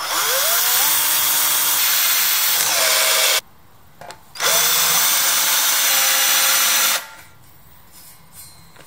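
Cordless drill running twice on a steel subframe bracket: about three seconds drilling a hole through the steel, then, after a pause of about a second, about two and a half seconds driving a screw into it. Each run starts with a rising whine as the motor spins up, then holds steady.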